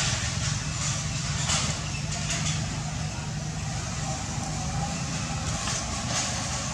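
A motor running steadily with a low rumble, with a few short rustling hisses over it.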